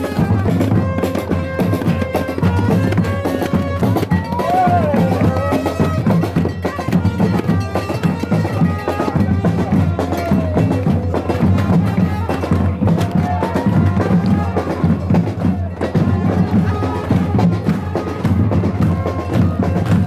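Music with drums and percussion beating steadily under a melody of held notes.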